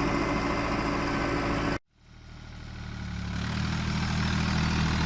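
Vehicle engine running steadily; it cuts out abruptly a little under two seconds in, and another engine fades back in and runs on steadily at a low, even pitch.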